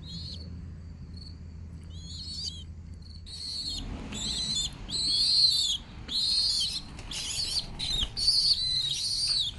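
Young pigeon squabs (squeakers) giving high-pitched squeaking begging calls: a few faint ones early, then a run of about eight louder calls, each under a second long, from about three seconds in.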